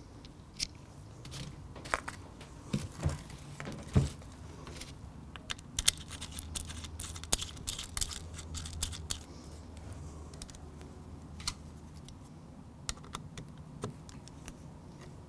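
Hands handling and adjusting a quiver's mounting bracket on a compound bow: scattered clicks and light knocks of the parts, the sharpest few about two to four seconds in, then a run of quick small clicks and rustling in the middle.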